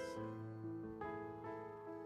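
Soft keyboard music: slow, sustained chords that shift every half second or so.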